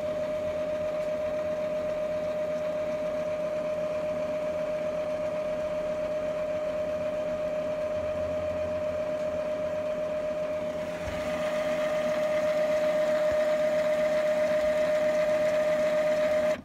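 Epson L3150 ink tank printer's motor running through a Power Cleaning cycle: a steady whine that starts and stops abruptly, growing louder and brighter about 11 seconds in.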